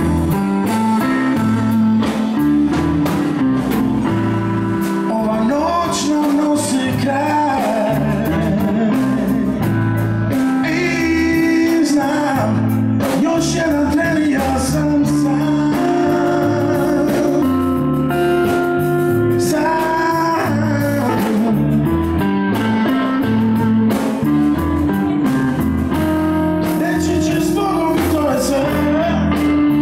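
A live blues band plays: a man sings lead over electric guitar, electric bass and a drum kit, in a steady groove.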